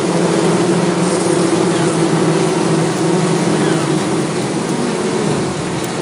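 Bees buzzing: a steady, loud drone of wingbeats from several bees together, wavering slightly in pitch.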